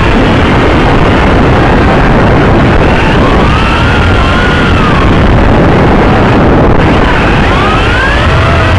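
Yizhan Tarantula X6 drone's motors and propellers, picked up by its onboard camera: a loud, rough buzz with whines that rise and fall in pitch as the motor speeds change in flight.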